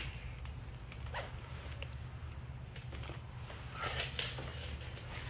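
Clothes being pulled out of a closet by hand: fabric rustling in a few short, soft brushes, about a second in and again around four seconds in, over a low steady hum.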